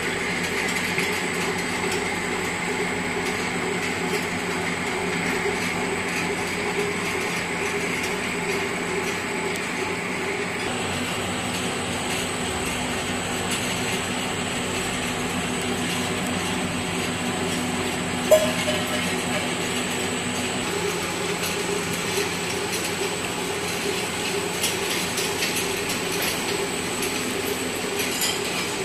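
PVC wire extrusion line running steadily as 2-core aluminium wire is insulated: a constant machine drone with several held hum tones, and one sharp knock about 18 seconds in.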